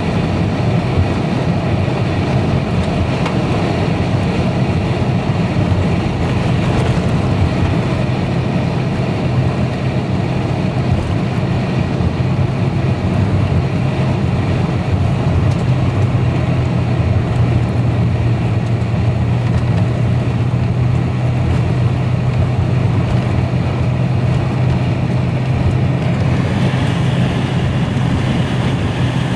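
A car driving along an unsealed dirt road, heard from inside the cabin: a steady drone of engine and tyre noise with a constant low hum.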